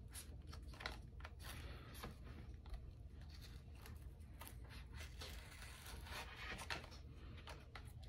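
Faint scraping and crackling of a thin plastic opening card sliding under the glass of an iPad 6, cutting through the warmed screen adhesive, with small irregular ticks.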